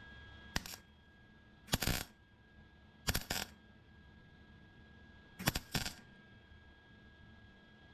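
Wire-feed welder laying short tack welds on the cracked sheet-steel firewall of a Ford Mustang: four brief bursts of arc, the first little more than a click and the last two each broken into quick pulses. The tacks are kept short so the panel does not get too hot.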